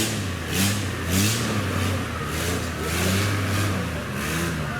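Off-road 4x4 Land Cruiser engine revved up and down again and again, about once every half to two-thirds of a second, as the driver works the throttle. Each rise in revs brings a brief hiss.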